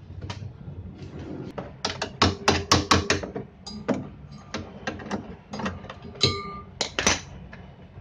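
Sharp clicks and knocks of tools and metal parts being handled against a washing machine's motor and pulley housing. A quick cluster comes about two to three seconds in, then scattered knocks, one of them a short ringing metallic clink.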